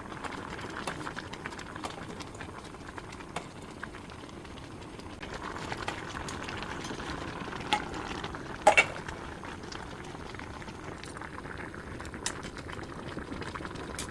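Shabu-shabu broth bubbling at a steady boil in the pot, with scattered small crackles and a few sharper clicks, the loudest about eight and a half seconds in.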